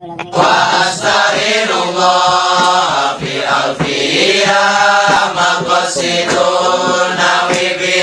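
Intro music: voices singing chant-like long held notes.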